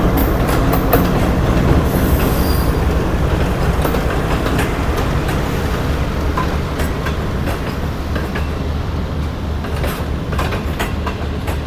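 Passenger train rolling slowly along the platform as it draws to a stop: wheels clicking over the rail joints under a steady diesel engine hum, with a brief high wheel squeal about two seconds in. The sound eases off gradually toward the end.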